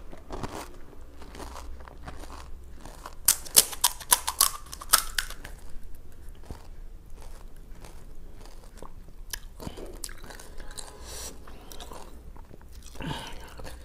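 Close-miked crunching and chewing of crisp, filled pani puri shells, with a run of sharp crunches about three to five seconds in, then softer chewing.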